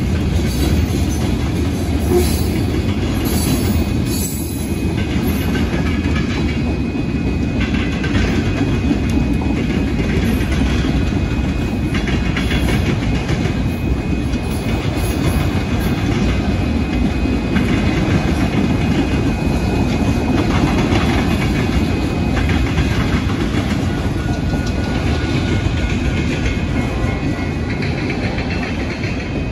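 Freight train of covered hoppers, center-beam flatcars and autoracks rolling past: a steady rumble with the wheels clacking over the rail joints.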